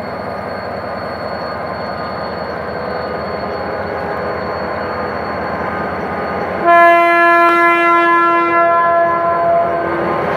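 GM GT22CW-2 diesel-electric locomotive pulling away with a passenger train, its diesel engine running steadily under power as it passes close by. About six and a half seconds in, the air horn sounds one blast of about three seconds, the loudest sound, given by the crew as a greeting.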